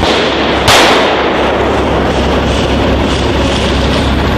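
A single loud bang about two-thirds of a second in, with a short tail dying away, over steady rushing noise.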